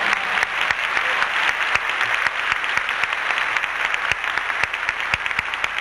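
Audience applauding, with single sharp claps standing out.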